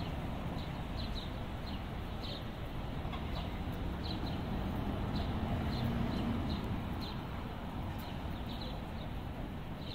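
Small birds chirping in short, irregular high calls over a steady low background of distant traffic.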